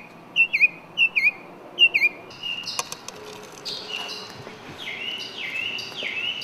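Northern mockingbird singing: one hooked chirp phrase repeated four times, then a different short phrase repeated over and over about twice a second.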